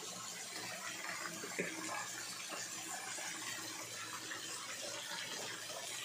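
Small waterfall: thin streams of water falling from a rock overhang and splashing steadily into the pool and rocks below. A brief knock sounds about one and a half seconds in.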